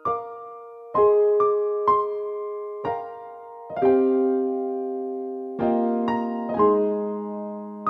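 Background music: a slow keyboard melody in an electric-piano sound, single notes and chords struck and left to ring and fade.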